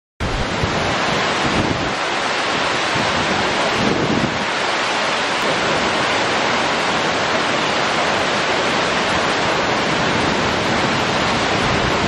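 Waterfall pouring into a pool: a loud, steady rush of falling water.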